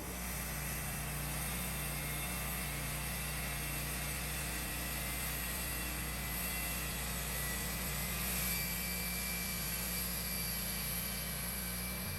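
Wood-Mizer LT15 portable band sawmill running steadily: an even engine hum with a faint high whine above it.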